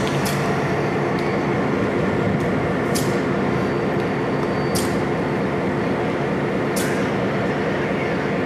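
Diesel locomotive idling with a steady low hum, broken by about four short high-pitched hisses a couple of seconds apart.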